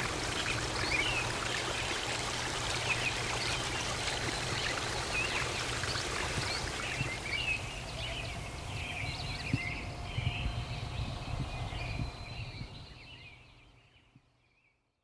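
Shallow river water rushing and splashing over stones, with short high bird chirps over it. The sound fades out near the end.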